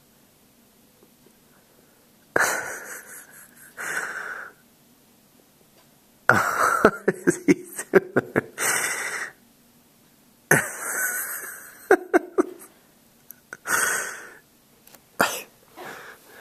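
A person close to the microphone coughing in repeated fits: about eight loud, rough bursts, each under a second, with short pauses between them.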